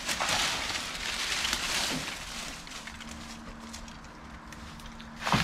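Leaves, twigs and branches rustling and crackling as a cut sapling is dragged through dry brush, loudest in the first two seconds and then fading off.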